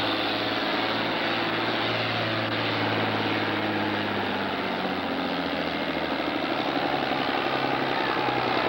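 Diesel engine of a John Deere farm-stock tractor working at full load while pulling a weight-transfer sled. Its pitch sags about halfway through as the engine lugs down.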